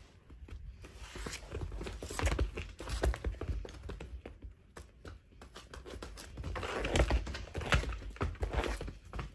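Irregular rustling, crinkling and soft thumps of a cat playing with a ribbon wand toy on tatami mats, busiest in the last few seconds.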